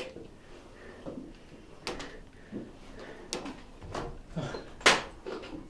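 A few faint, scattered knocks and clicks about a second apart, the loudest about five seconds in, in a small wooden room.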